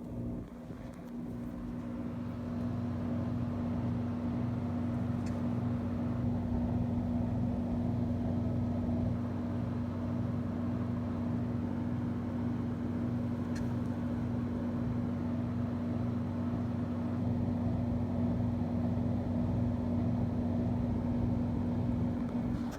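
Steady low mechanical hum of a running motor, one constant drone.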